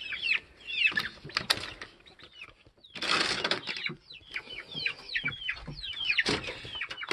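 A flock of chickens making soft, repeated falling chirps and clucks as they crowd at the coop door to go in for the night. A short rustle comes about three seconds in and again a little after six seconds.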